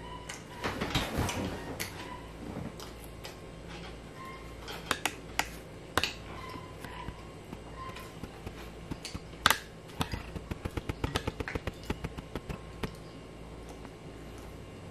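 Bamboo skewers clicking and tapping against each other as they are handled and pulled from a pile of skewered food, in irregular clicks with a rustle near the start; the sharpest click comes about two-thirds of the way in, followed by a quick run of clicks.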